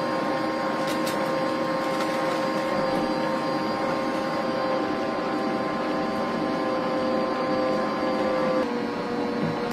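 Bosch stand mixer's electric motor running steadily with a hum and whine, beating sticks of butter in the bowl. Its pitch drops slightly near the end.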